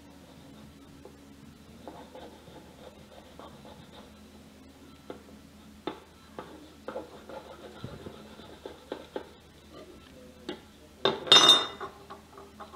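A blunt knife cutting and scraping along a flathead fillet on a plastic cutting board, with scattered small taps and clicks. About eleven seconds in there is a short, loud clatter, the loudest sound.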